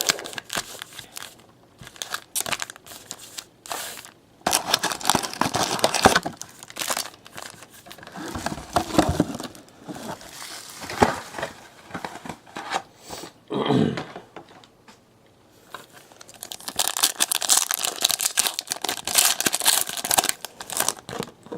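Plastic wrapping on a box of trading cards crinkling and tearing in irregular bursts as the box is unwrapped and opened.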